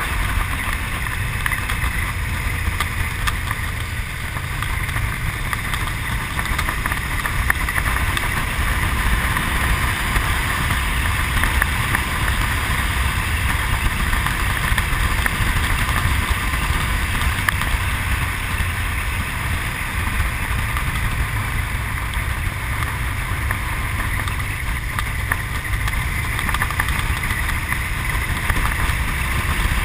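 Honda VTR1000's V-twin engine running steadily while the motorcycle cruises along an open road, mixed with wind rush on the camera microphone.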